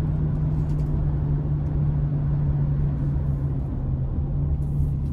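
The 6.6-litre naturally aspirated V8 of a GMC Savana 2500 van running steadily while driving, heard from inside the cab: an even low hum over road rumble.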